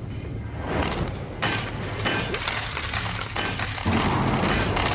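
Film soundtrack of gold coins clattering and clinking as they pile up in heaps, a dense run of metallic strikes with bright ringing, over music.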